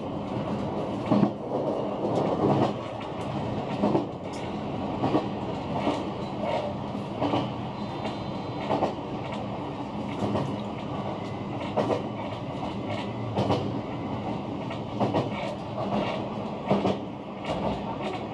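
JR West 125 series single-car electric train running, heard from inside the car: a steady rumble with wheels clicking over rail joints every second or so.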